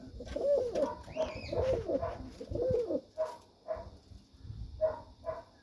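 Domestic pigeons cooing: three rising-and-falling coos about a second apart, then shorter, softer coo notes in the second half.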